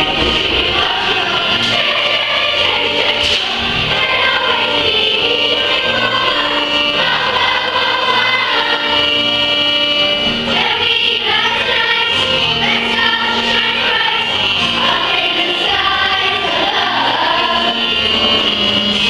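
A large group of children singing together as a choir over a musical accompaniment, one song running steadily throughout.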